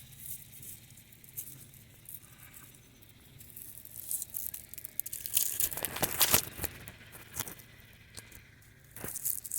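Irregular rustling and crackling handling noise, heaviest about four to seven seconds in, with a faint steady low hum underneath.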